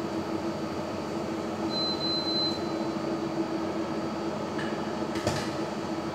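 Steady mechanical hum of a kitchen appliance, with a thin high whine for about a second near two seconds in. About five seconds in, a metal ladle clinks against the steel soup pot.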